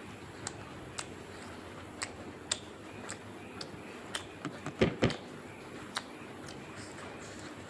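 Close-up eating sounds: chewing, with sparse wet mouth clicks about once or twice a second and a short cluster of louder knocks about five seconds in.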